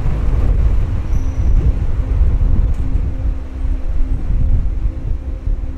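Jet engines of a Boeing 777-300 airliner at the airport, a dense, steady low rumble with a faint steady hum above it.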